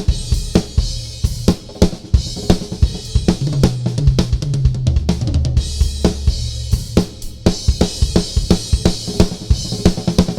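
Gretsch Renown Maple drum kit with Sabian cymbals played in a fast solo: dense strokes on snare and bass drum under a steady wash of cymbals and hi-hat. From about a third of the way in, deep drums ring out in held low notes.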